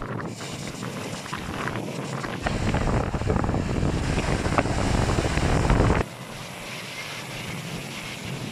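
Small waves breaking and washing up a beach, with wind buffeting the microphone. The wind rumble is heaviest in the middle and cuts off abruptly about six seconds in.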